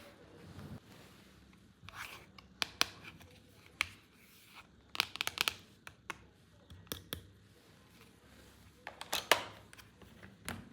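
Toy packaging being opened by hand: short tearing and crinkling sounds mixed with sharp plastic clicks, in scattered bursts with brief pauses between.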